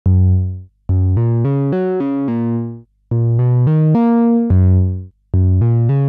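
Unaccompanied synth trumpet playing a melody: one held opening note, then runs of quick notes, with short pauses between phrases.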